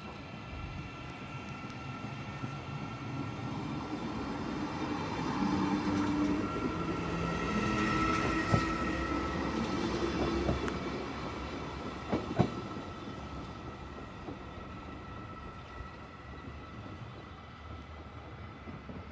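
Arriva Stadler GTW electric multiple unit pulling away and passing close by. There is a steady whine with stepping lower tones over a rumble, loudest about eight to ten seconds in, with a few sharp clicks from the wheels before it fades as the train draws away.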